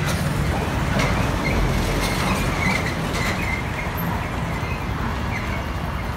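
Steady rumble of motor vehicle and road noise, with a faint wavering high tone a couple of seconds in.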